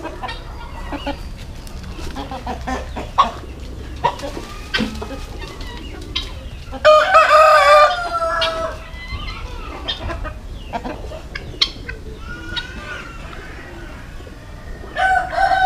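Roosters crowing: one long crow about seven seconds in and another starting near the end, with scattered short clucks and calls from the flock in between.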